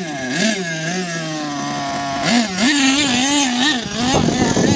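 Small nitro RC car engine revving up and down as the car drives, its pitch rising and falling again and again. About four seconds in, rough wind noise on the microphone joins it.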